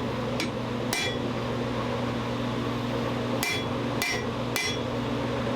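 Hammer blows on hot steel over an anvil's hardy, cutting through the bar: a light strike and a heavier one, a pause, then three strikes about half a second apart, each leaving a brief metallic ring. The hardy is blunt, so the cut goes slowly.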